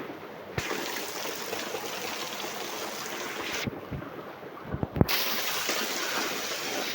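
Steady rain falling, an even hiss, with a few low thumps: one near the start and several about five seconds in.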